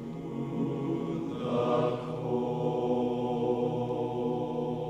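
Slow background music of long, held chords with a chant-like sound. A new chord comes in about a second and a half in, and the music tapers off near the end.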